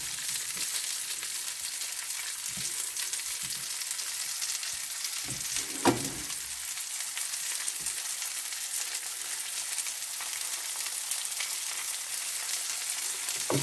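Slices of zucchini, squash and eggplant sizzling steadily as they fry in oil in a pan. A few short knocks sound over it, the sharpest about six seconds in.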